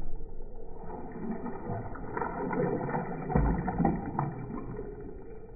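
Water poured from a mug over the glass of an empty aquarium, splashing and sloshing as the tank is rinsed, with louder splashes about three and a half and four seconds in.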